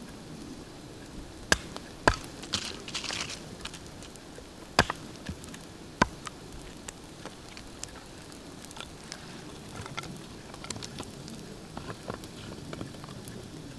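Small wood campfire crackling as split kindling sticks are laid onto it by hand, with a few sharp loud cracks standing out in the first six seconds.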